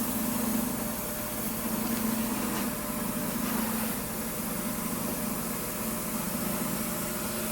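Electric motor of a cobbler's shop machine running steadily, a continuous hum over an even hiss.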